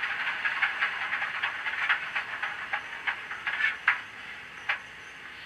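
HO-scale model train led by an Atlas RSD-5 diesel running along the track: a steady rolling hiss with irregular clicks of wheels over rail joints. It fades as the train moves away, and the last clicks come near the end.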